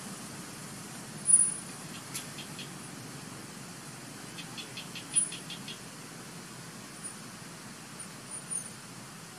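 Steady outdoor background hiss with a few short, very high-pitched chirps, the loudest about a second in, and a quick run of about eight clicking chirp notes around the middle.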